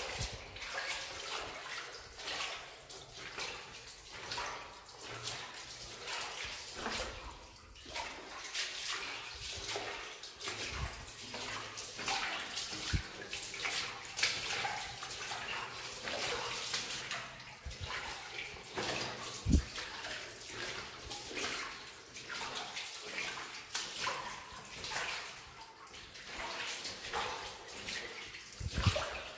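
Boots splashing through shallow water on a mine tunnel floor, one irregular step after another, with a dull thump about two-thirds of the way through.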